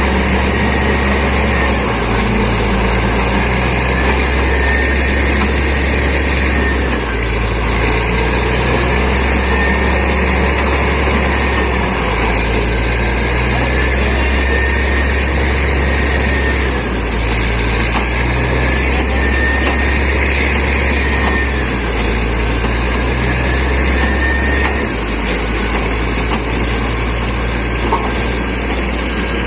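Borewell drilling rig running steadily, its engine and air compressor loud and unbroken. A low hum swells and eases in a regular cycle about every two and a half seconds.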